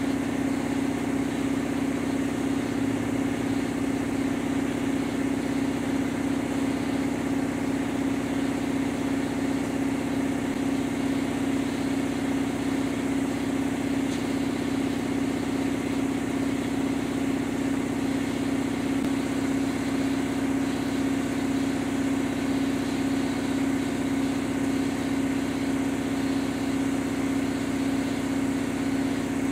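A shop machine running steadily, a strong even hum with a slight regular pulsing and no change in pitch or level.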